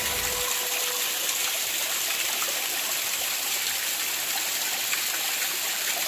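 A thin waterfall running down a wet rock face and splashing at its base, making a steady hiss of falling water.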